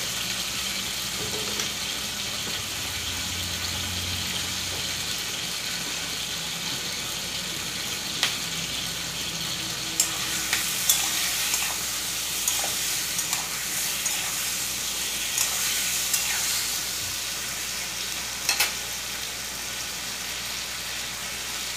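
Tomato wedges frying in hot mustard oil in a stainless steel kadai, a steady sizzling hiss. A few sharp clinks and scrapes come from a spatula stirring them.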